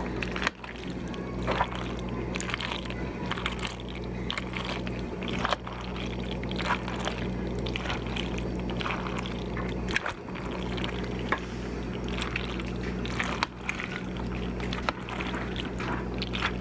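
Mayonnaise-dressed macaroni salad being stirred in a bowl with a utensil: irregular wet mixing swishes and light scrapes, over a steady low hum.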